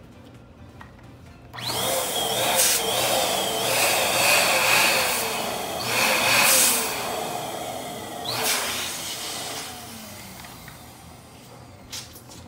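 Electric balloon pump running while it blows up a large latex balloon on its nozzle. It starts about a second and a half in and cuts out about eight and a half seconds in.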